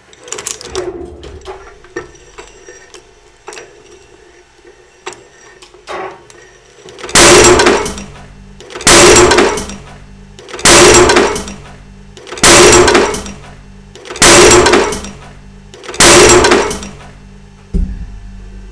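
Industrial shredder's blades crushing hard material: light crackling and clicking at first, then six loud grinding crashes at an even pace, about one every two seconds, over the steady drone of the motor.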